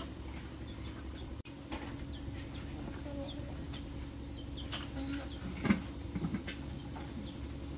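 Birds making repeated short, high, falling chirps over a steady low hum, with one sudden knock a little before six seconds in.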